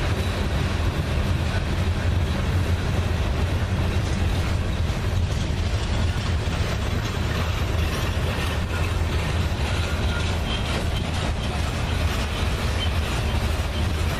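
Freight train rolling past: a steady rumble and rattle of the cars' wheels on the rails.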